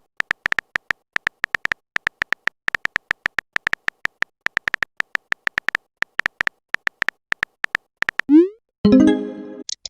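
Smartphone on-screen keyboard typing sound effect: a quick, irregular run of short identical electronic clicks for about eight seconds. Near the end comes a rising pop and a short chime, a message-sent notification sound.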